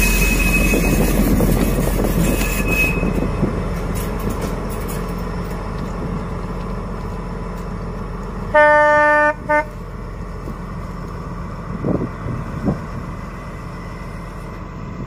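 D11H diesel locomotive running past at close range, its engine and wheels on the rails fading over the first few seconds. About eight and a half seconds in its horn gives one blast under a second long, then a brief second toot.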